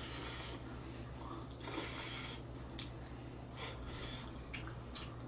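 Wet slurping and chewing of spaghetti noodles eaten from chopsticks, in two longer slurps at the start and about two seconds in, then several short mouth sounds. A low steady hum runs underneath.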